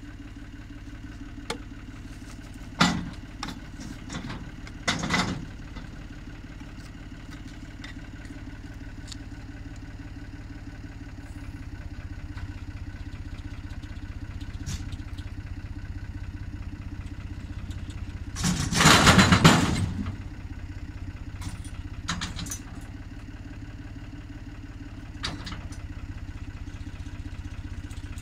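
Truck engine running steadily to drive the hydraulic pump of a homemade log loader, with sharp metal clanks from the loader's steel frame a few seconds in. About two-thirds of the way through comes a loud thud lasting over a second as the log lands on the truck's wooden bed, followed by a few lighter knocks.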